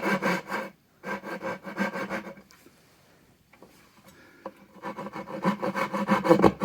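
Hand saw cutting kerfs into wood with quick, even strokes, cutting the notch in a breadboard end down to the bottom of the tongue. The sawing stops briefly just before a second in, goes on again, pauses for about two seconds in the middle, then starts again and grows louder near the end.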